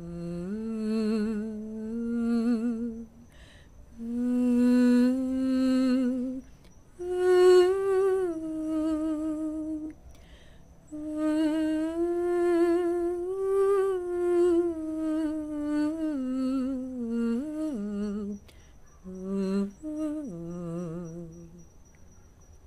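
A woman's voice humming the song's melody without words, in phrases of a few seconds with short breaks. The notes are held with vibrato, and there are a few sliding changes of pitch.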